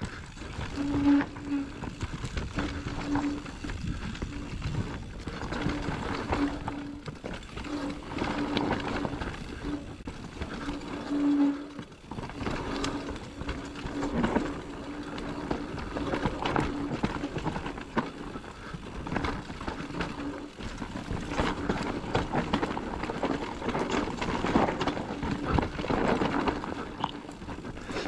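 Electric mountain bike riding down a rough dirt trail: tyres rolling and rattling over dirt and rocks, with a steady low motor hum that comes and goes through the first two-thirds.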